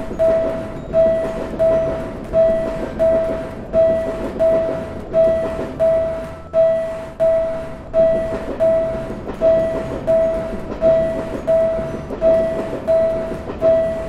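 Railroad crossing warning bell ringing steadily, about three dings every two seconds, over the rumble and clatter of a passing train.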